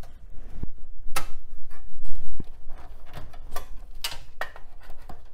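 Irregular sharp plastic clicks and knocks from power-supply cable connectors being unplugged and the wires handled inside a computer case, loudest about two seconds in.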